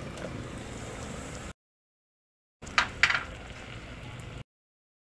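Steady low background noise with two sharp knocks a quarter-second apart near the middle, broken twice by abrupt cuts to dead silence.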